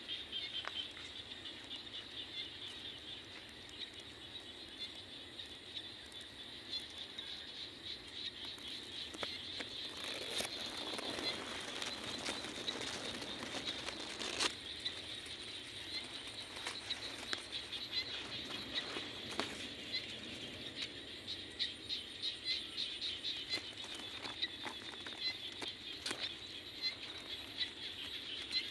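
Night insect chorus: a steady, high-pitched trill of rapid pulses, with scattered clicks and a patch of rustling crackle about ten to fifteen seconds in.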